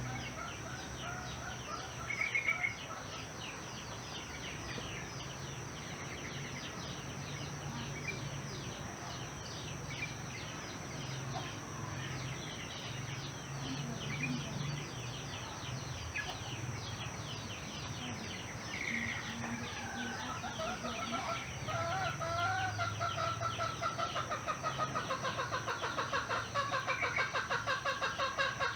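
Village soundscape of chickens clucking and small birds chirping, over a steady high-pitched hum. In the last several seconds a fast run of repeated clucking calls grows louder.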